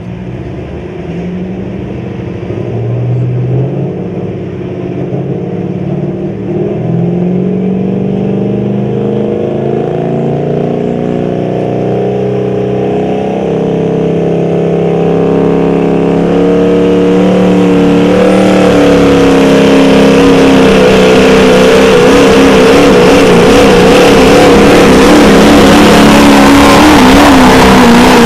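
Diesel pickup truck's engine pulling a weight-transfer sled: it revs up in steps at first, then runs flat out under load, growing steadily louder with a rising rush of noise over the last ten seconds.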